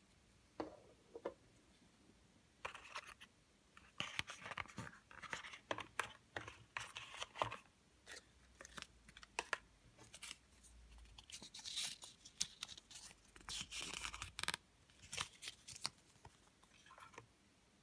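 Thin white cardboard packaging and a paper instruction leaflet being handled: intermittent rustling, scraping and light taps, busiest from a few seconds in and thinning out near the end.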